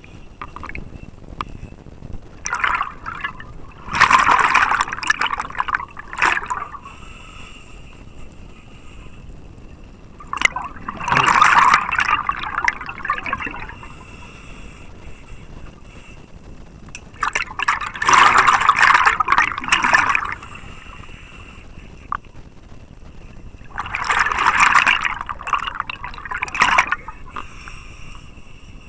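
Scuba diver's exhaled breath bubbling out of the regulator, in four bursts of about three seconds each, roughly every six to seven seconds in the rhythm of breathing. Between breaths only a faint steady underwater rush.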